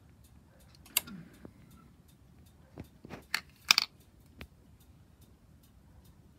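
Ignition key being turned in a 2007 BMW R1200RT's ignition lock to switch it back on: a handful of sharp clicks and clacks, the loudest a little past the middle. Faint even ticking, about four a second, runs underneath.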